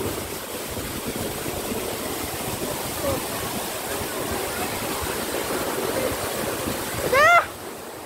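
Waterfall pouring as a steady, even rush of water noise. Near the end a person's voice gives a short call rising in pitch, and right after it the water noise suddenly drops.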